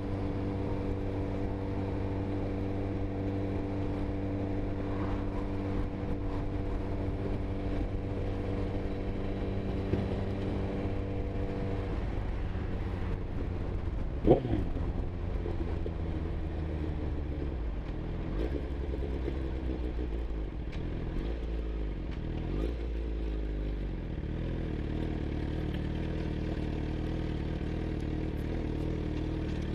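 Sport motorcycle's engine at a steady cruise, heard from the rider's seat with wind noise. About twelve seconds in the engine note drops as the bike slows, with a short sharp rise and fall in pitch about two seconds later, then runs at lower, changing revs while rolling slowly.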